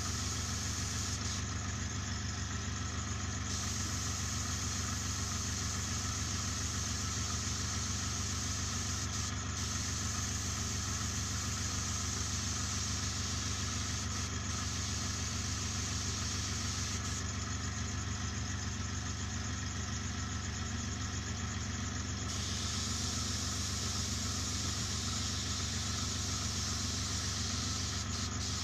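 Airbrush air compressor running with a steady hum, under a hiss of air from the airbrush that swells for the last several seconds.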